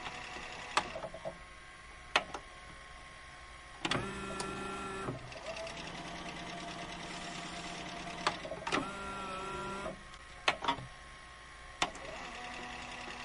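VHS video cassette recorder's tape mechanism clicking and clunking several times, with its motor whirring steadily for about six seconds in the middle as the tape rewinds.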